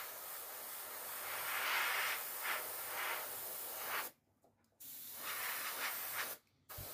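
Airbrush spraying grey primer: a steady hiss of air and paint that cuts off about four seconds in, then comes back in a shorter burst and starts again near the end.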